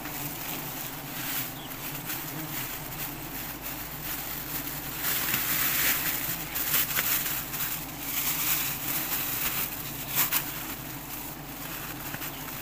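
Giant honey bees buzzing around their exposed comb, a steady low hum, with rustling of grass and leaves and a few short crackles from handling close by.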